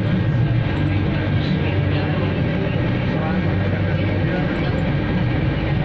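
Airliner's engines and cabin air system heard from inside the cabin on the ground: a steady low drone with a faint high whine over it.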